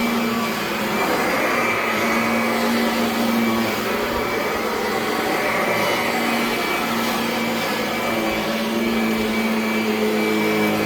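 Kirby Avalir 2 upright vacuum cleaner running on carpet: a steady motor and airflow drone with a hum that shifts slightly in pitch as it works.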